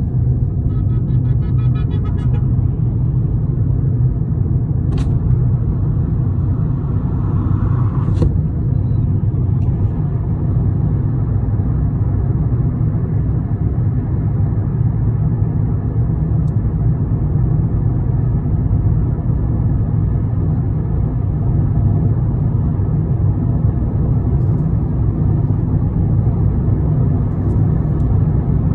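Steady low rumble of a moving vehicle heard from inside, with a couple of brief clicks.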